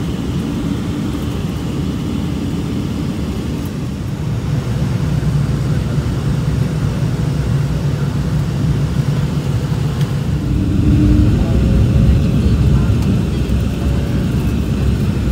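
Airliner cabin noise of an Embraer 190-E2 in descent, heard at a window seat: a steady low rumble of airflow and its Pratt & Whitney PW1900G geared turbofans. It grows louder about four seconds in, with a faint steady engine tone coming in near the end.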